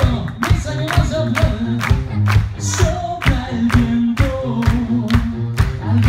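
Rock band playing live: a drum kit keeps a steady beat of about two hits a second under electric guitar and bass guitar, with a male voice singing.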